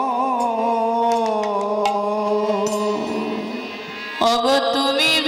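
Bengali kirtan music: a long held note over harmonium with a few light percussion clicks, then a woman's voice singing a devotional line with vibrato from about four seconds in.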